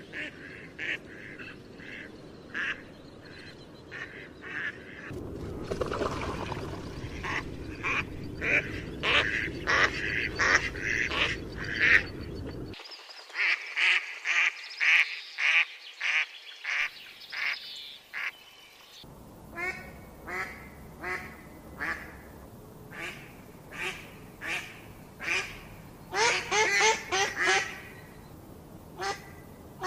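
Ducklings peeping: short, high-pitched calls repeated about twice a second, with a quick run of many calls close together near the end.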